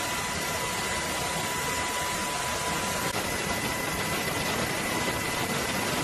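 Steady, even noise with a thin, high steady whine, unchanging throughout.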